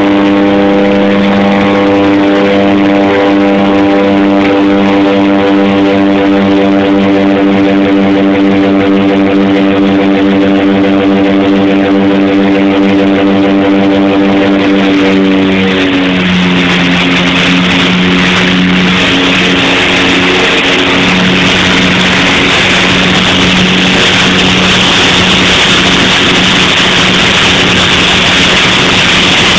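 Twin Otter's twin PT6A turboprops droning steadily, heard inside the cabin with the jump door open and wind rushing past. About sixteen seconds in, the propeller tone drops in pitch and the wind rush grows louder, as the plane comes off power and dives into a wingover once the jumpers are out.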